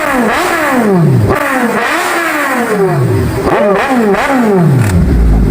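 Kawasaki Z1000 inline-four motorcycle engine revved repeatedly in quick throttle blips for a sound check, each rev rising sharply and dropping back, settling to idle near the end.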